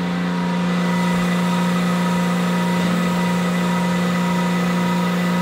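Steady hum of a Datron Neo CNC mill running, a constant low tone with fainter steady higher tones above it.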